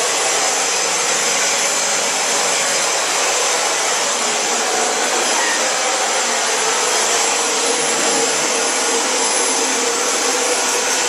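Dyson DC40 Animal upright ball vacuum cleaner running steadily, an even rushing noise with a steady whine over it.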